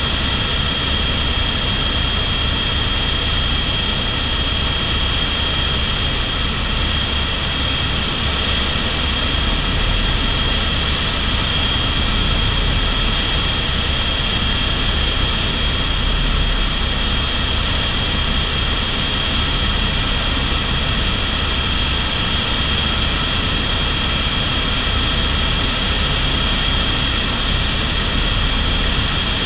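Cabin noise of an Airbus H125 (AS350) single-turbine helicopter in cruise flight: a steady high turbine whine over the low rumble of the main rotor, unchanging throughout.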